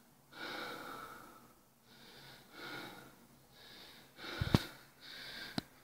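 A woman breathing hard, out of breath from climbing stairs, about one breath a second. Two sharp clicks come near the end, the first the loudest sound.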